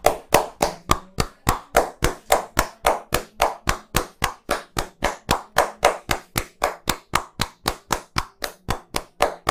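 A barber's hands striking the head in a fast, even rhythm of about four claps a second: the percussive tapping strokes of an Indian head massage.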